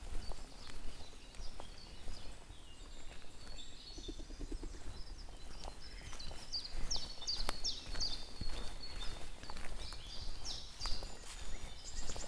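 Songbirds singing and calling in woodland: many short high chirps and whistled notes, thickening in the second half and ending in a fast high trill, over a steady low outdoor rumble.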